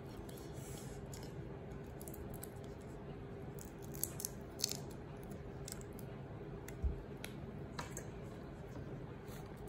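Raw shrimp being peeled by hand: scattered small clicks and snaps of the shells coming off, with a soft thump about seven seconds in, over a steady low hum.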